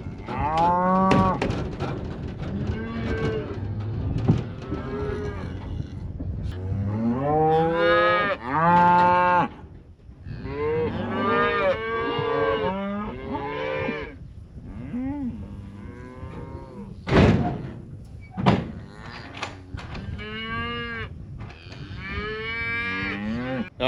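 Beef cows and calves mooing and bawling, many overlapping calls of differing pitch. Two loud knocks come about a second apart, about two-thirds of the way through.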